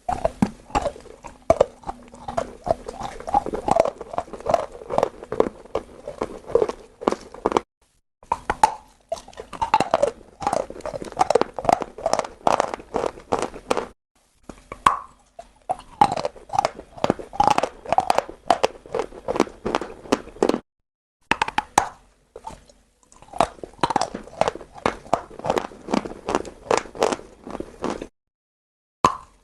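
A person biting and chewing chalk close to the microphone: a dense run of crisp crunches, broken off abruptly by four short silent gaps.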